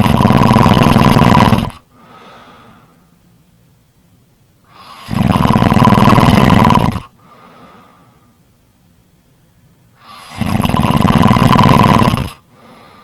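Snoring: three loud snores about five seconds apart, each lasting about two seconds and followed by a much softer breath.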